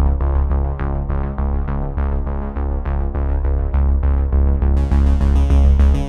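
Electronic background music: synthesizer notes over a strong bass with a steady beat, and a brighter, higher layer coming in about five seconds in.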